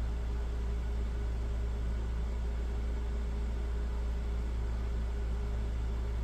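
Steady low hum with an even hiss over it, unchanging throughout: constant background machine or room noise.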